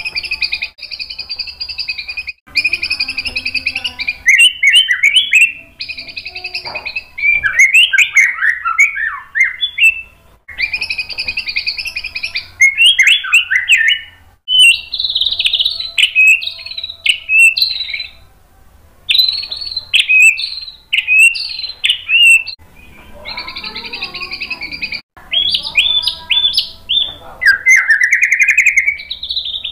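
White-rumped shama (murai batu) singing loudly in a long run of varied phrases: rapid buzzy trills, quick jumbled warbles and whistles, and a rising whistle near the end, with short pauses between phrases. It is a bird in full song showing off its learned repertoire (isian).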